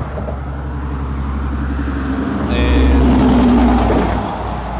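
Loaded logging truck passing close by: diesel engine and tyre noise growing louder to a peak about three seconds in, then easing off.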